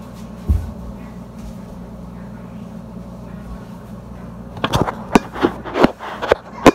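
A hand grabbing and handling the phone that is recording: a run of sharp knocks and rubbing against the microphone, loud and irregular, starting about four and a half seconds in. Before it, a steady low hum with a single thump about half a second in.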